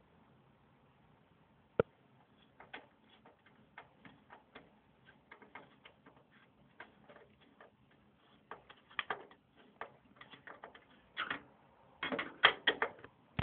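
Screwdriver working the screws of a CPU heatsink fan: metal clicks and ticks as the screw is turned. One sharp click about two seconds in, then a run of irregular small clicks that come thicker and louder near the end.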